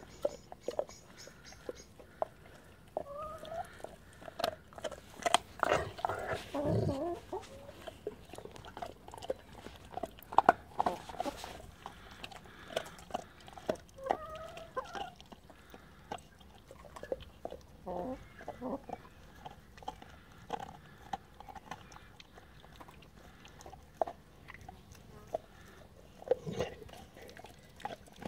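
Chocolate Labrador chewing and crunching on something, a steady run of short wet clicks and crunches, with a few short clucks from a hen pecking close by.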